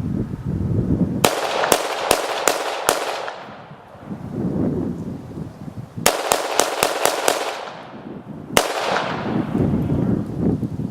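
Semi-automatic gunfire: a rapid string of about seven shots, a pause, a second rapid string of about seven shots, then a single shot, each crack trailing off in an echo.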